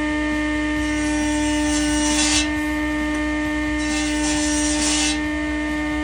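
Table saw motor running with a steady hum, and its blade cutting into a pine block twice, each cut a hiss lasting about a second and a half.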